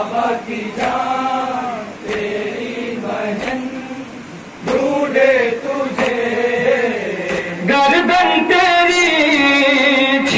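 A man chanting a noha, a Shia mourning lament in Urdu, in long, wavering sung lines. From about eight seconds in the voice grows louder and fuller.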